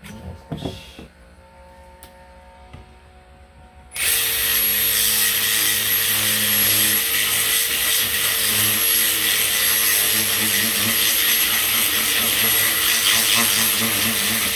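Cordless drill running steadily at speed with a high whine as its bit widens a hole in an aluminium pipe. It starts about four seconds in, after a few light handling knocks, and keeps going for about ten seconds.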